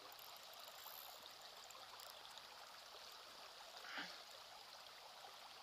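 Faint, steady rippling of a shallow river flowing over its bed.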